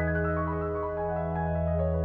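Instrumental background music: a stepping melody of short notes over a held low note.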